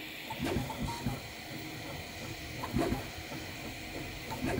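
Original Prusa Mini 3D printer printing: a steady fan hiss and hum, with the stepper motors whirring in short louder moves of the print head every second or two.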